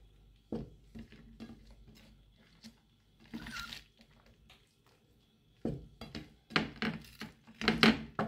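Kitchen utensils clicking and clattering against a stainless steel cooking pot: a few light clicks, then a run of louder clatters in the last few seconds.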